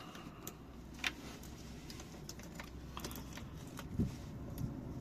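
Scattered small clicks and taps of hands working the top fuel hose and its clip onto a new in-line fuel filter, with a sharper click about a second in and a dull knock about four seconds in.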